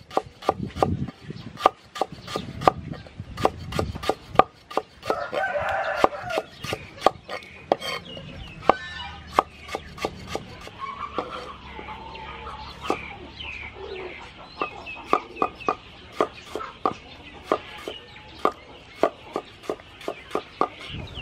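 Steel cleaver chopping on a wooden cutting board, slicing lemongrass stalks in steady strokes of about two to three a second. A rooster crows about five seconds in, and chickens cluck later in the background.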